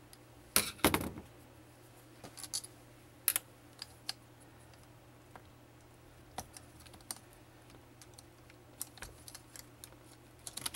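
Small metal parts clicking and clinking on a transmission valve body as its pressure-regulator bracket and transducer are worked loose and lifted off by hand. There is a louder clatter about a second in and scattered light clicks after it.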